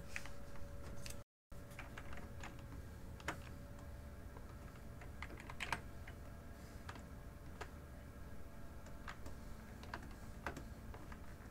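Scattered computer keyboard and mouse clicks, a dozen or so at uneven intervals, over a faint steady hum. The sound cuts out completely for a moment about a second in.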